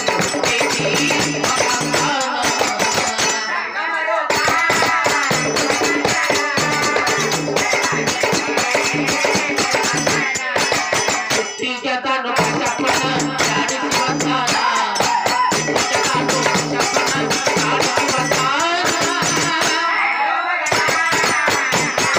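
Devotional bhajan: a man singing over a harmonium, with fast, steady jingling hand percussion keeping the beat. The jingling drops out briefly a few times.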